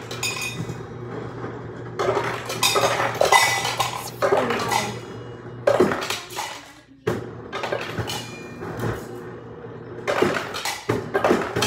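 Ice cubes clattering and clinking into a cup in several loud bursts, with ringing clinks, over a steady low hum that stops about seven seconds in.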